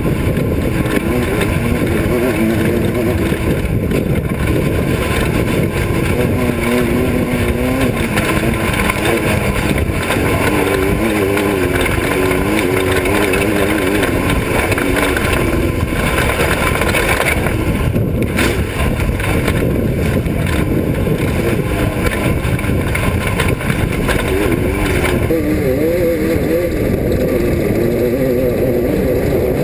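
Class 5 off-road race car's engine running hard, its pitch wavering up and down continuously with the throttle, over constant rumbling noise.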